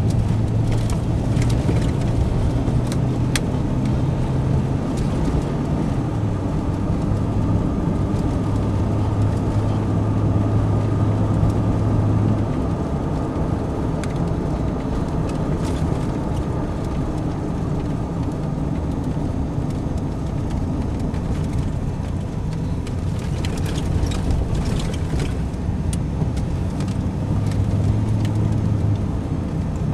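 A car driving along a road, heard from inside the cabin: a steady engine hum with tyre and road rumble, the engine note shifting in pitch now and then.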